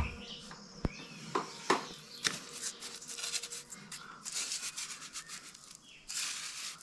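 Trowel scraping lime mortar against rough stonework: a few light knocks, then a run of quick scraping strokes.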